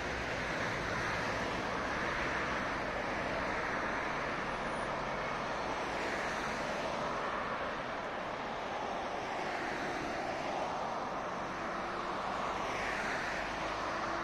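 City road traffic running steadily, with passing cars' tyre and engine noise swelling and fading every few seconds.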